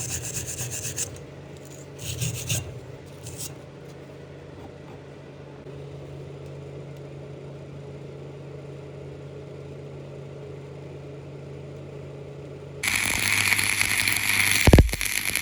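Fast rubbing strokes, like wire-brushing or filing metal, and a couple of short scrapes over a steady low hum, then about 13 seconds in an electric welding arc strikes and crackles loudly with a few sharp pops.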